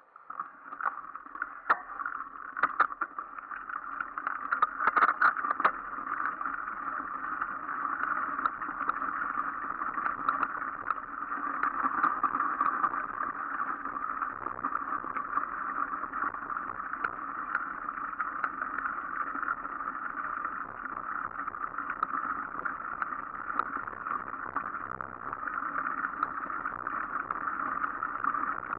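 Mountain bike riding over gravel, snow and leaf-covered dirt paths: a steady rolling rumble of tyres and wind noise, with a few sharp knocks from bumps in roughly the first six seconds.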